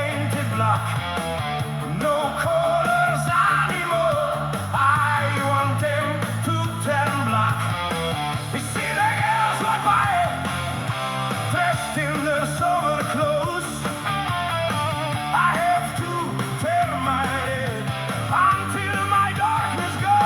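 Rock music with a male singing voice, guitar and a steady bass line.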